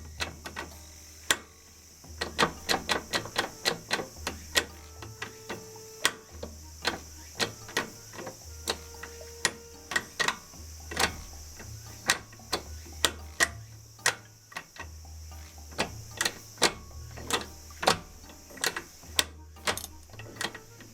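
Background music: a bass line stepping in pitch about once a second under rapid, sharp clicking percussion.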